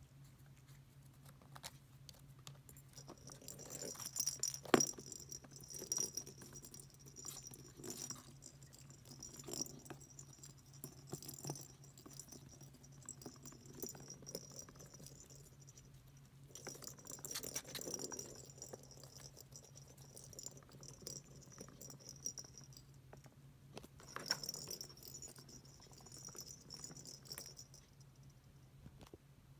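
Balls rattling and knocking around the track of a circular cat scratcher toy as a kitten bats at them, with stretches of jingling from a bell ball and a sharper knock about five seconds in. A steady low hum lies under it.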